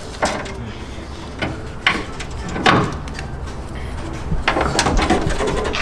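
Scattered knocks and clicks of hands and tools on car parts, heard as the radiator hoses and their clamps are fitted.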